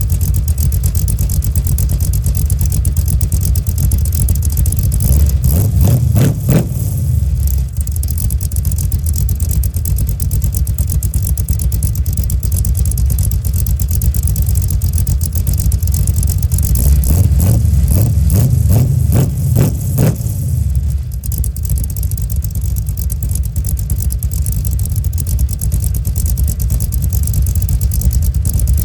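Cammed 355 small-block Chevy V8 with an XR282 camshaft, exhausting through Flowmaster Flow FX mufflers, idling and revved up twice: once about five seconds in, and again in a longer run of revs around seventeen to twenty seconds in.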